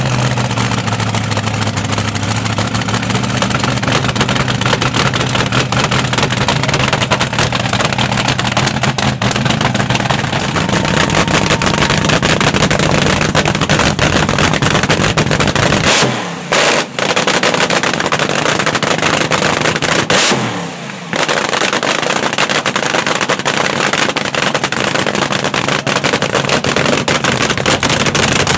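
Supercharged V8 of a front-engine dragster running loud through open individual header pipes. Its sound drops away sharply twice for a moment past the middle, then comes straight back.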